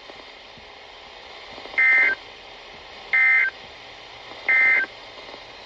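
Emergency Alert System SAME data bursts: three short, identical bursts of warbling digital tones about a second apart, each about a third of a second long. Coming right after the spoken warning, they are the end-of-message code that signals the alert is over. A faint steady hiss lies under them.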